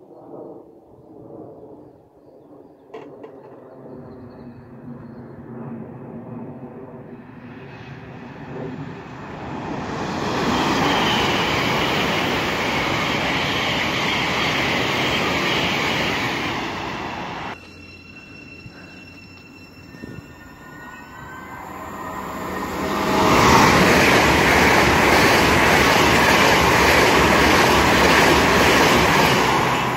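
Electric passenger trains running through a station: a low hum builds into a loud rush of wheels and air that cuts off suddenly. After a few seconds of fainter motor whine, an LNER Azuma high-speed train rushes past close by, louder still.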